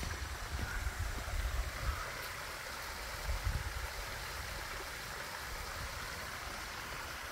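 Small stream trickling over the rocks of a garden rock cascade: a steady, even rush of water, with a low rumble coming and going in the first few seconds.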